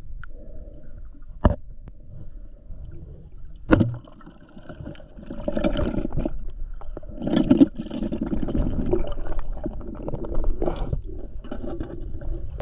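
Water sloshing and gurgling close to the microphone, with two sharp knocks in the first four seconds. The sloshing grows busier and louder from about five seconds in.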